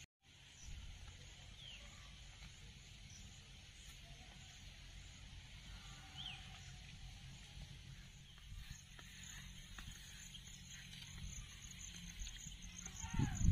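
Outdoor rural ambience: a steady low rumble with a few short, high falling bird chirps, and a high pulsing insect trill that sets in about two-thirds of the way through. Near the end there are a few louder low thumps and a falling call.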